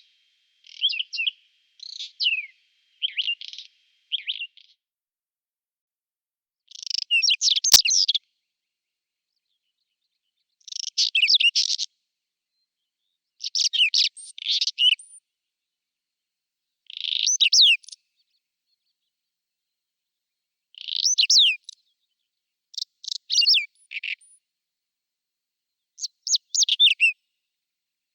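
Whinchat singing: short, scratchy phrases of rapid notes, each about a second long, repeated after pauses of one to three seconds. A single sharp click comes about eight seconds in.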